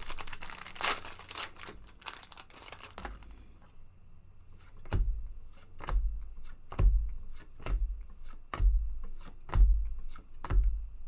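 A foil booster-pack wrapper crinkling and tearing for about the first three seconds, then trading cards handled one at a time, a soft tap about once a second.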